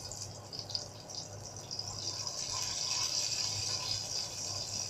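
Whole mustard seeds sizzling in hot oil in a frying pan, with a few crackles in the first second and the sizzle growing louder from about two seconds in.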